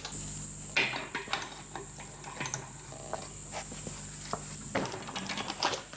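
Pieces of annealed steel stock clinking and knocking as they are handled and set in a bench vise: several short, irregular metallic clicks and knocks.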